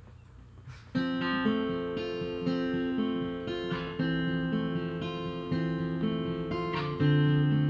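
Solo acoustic guitar: after about a second of quiet, the opening chords of a song are strummed and left to ring, changing every second or so, with a louder chord near the end.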